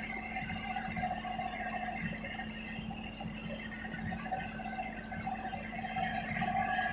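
Bulldozer engine running steadily under a low rumble, with a constant hum and a wavering whine on top.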